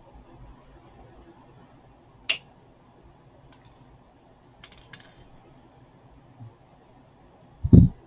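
Small clicks and a brief light rattle of wire and hand tools being handled on a plastic bead tray: a sharp click about two seconds in, a short rattle around five seconds, then a dull thump near the end.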